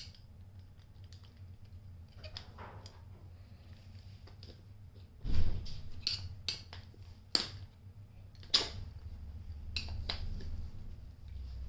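A screwdriver prying at the head of a hand ratchet: scattered metal clicks and small scrapes, with a louder knock about five seconds in and several sharp clicks after it.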